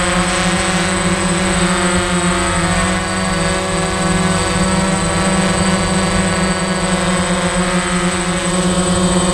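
Quadcopter drone's motors and propellers running steadily while it hovers, heard from the camera on board: a loud, even hum made of several steady tones, with a thin high whine above it.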